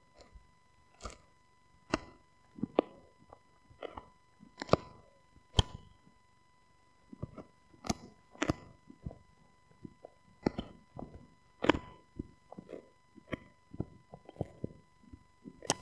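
Husky gnawing a rawhide-style chew bone: irregular crunching and clicking bites, about one a second, with a short pause about six seconds in.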